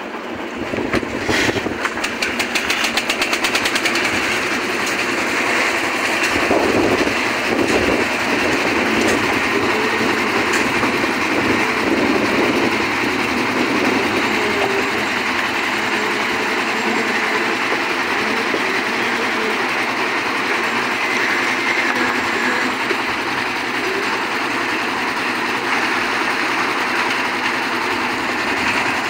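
Construction machinery at a concrete roof-slab pour running steadily, a loud continuous mechanical hum and clatter, with a fast, even rattle in the first few seconds.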